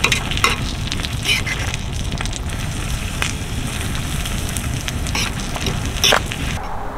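Food sizzling in a pan on a wood-burning stove, with scattered sharp clicks. The sizzle cuts off suddenly shortly before the end.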